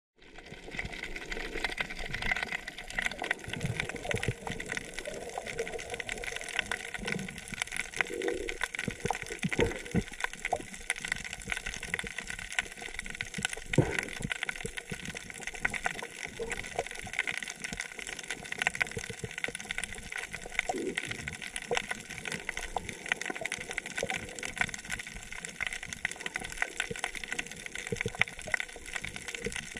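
Underwater sound picked up by a camera in the sea: a constant fine crackling over a steady watery hiss, with a few short low bubbling gurgles.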